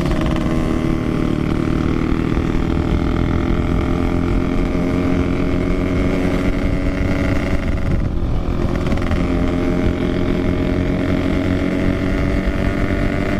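Yamaha RX-King's 135cc single-cylinder two-stroke engine running under way, its exhaust note holding steady, easing off briefly about eight seconds in, then climbing gradually.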